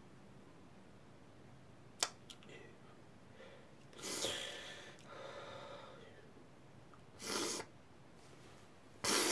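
A man's breathing: a sharp click about two seconds in, then a long, noisy exhale around four seconds in, and two short, sharp breaths near the end.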